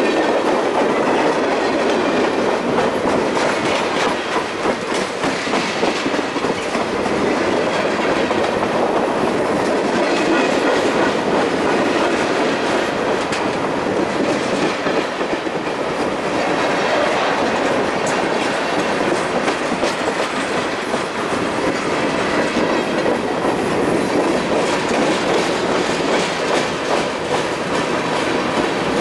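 Freight cars rolling steadily past close by: a continuous rumble and rattle of the cars, with steel wheels clicking over the rail joints.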